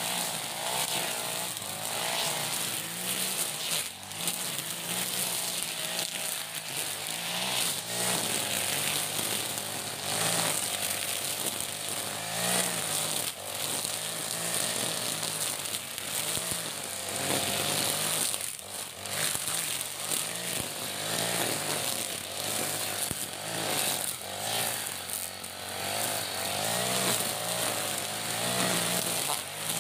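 iPower EH40 40cc four-stroke brush cutter running under load, its nylon-line trimmer head cutting through grass and weeds. The engine speed rises and falls again and again as the throttle is worked.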